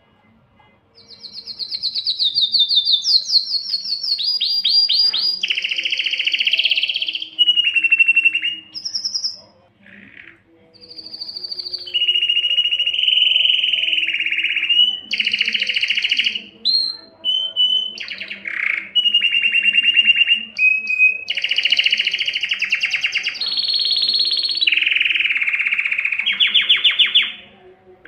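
Domestic canary singing a long song of rapid trills and rolls, each phrase held for a second or two before switching to a different pitch, with a short break about ten seconds in.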